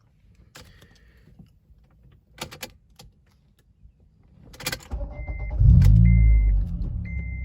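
A few sharp clicks, then about five seconds in the car's engine, fitted with an aftermarket header and full exhaust, is cranked and fires, flaring up in revs before settling to a steady idle. A short high chime beeps about once a second as it runs.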